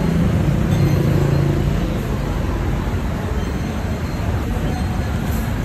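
Steady, low vehicle rumble of engine and road noise.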